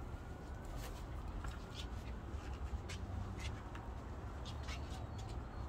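Six-week-old puppies playing: scattered faint clicks and small squeaks over a steady low rumble.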